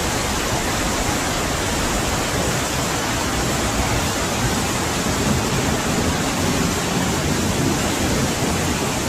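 Steady rushing noise of water, like a torrent of floodwater or a heavy downpour, even and unbroken throughout.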